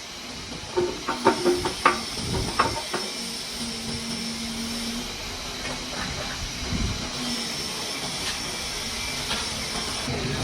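Metal parts knocking and clinking against each other in a quick run of strikes, some ringing briefly, over a steady hiss of workshop noise; a dull thump follows later.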